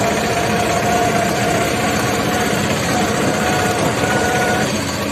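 Auto-rickshaw engine running while the vehicle is under way, heard from inside the open passenger compartment: a loud, steady engine drone mixed with road and wind noise, with a steady whine that fades out near the end.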